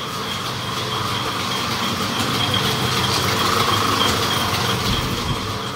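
Electric household flour mill (atta chakki) running: a steady motor hum with a high whine over an even grinding noise, growing a little louder toward the middle.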